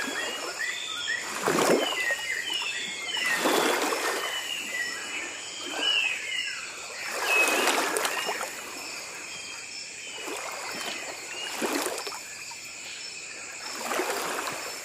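Water sloshing and swishing in a plastic tub as hands stir it and push floating paper boats about, in repeated swells a second or so long. Short bird chirps run through the background, mostly in the first half.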